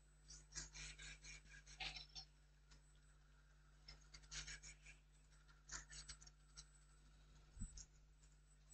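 Faint, irregular scratchy bursts from the TwoWin 3826 laser engraver's stepper motors as the head makes short strokes across the design, over a low steady hum.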